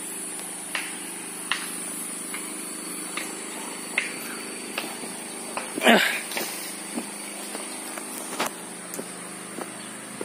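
Footsteps on a dirt path, about one step every 0.8 seconds, over a steady low machine hum. A brief louder sound about six seconds in.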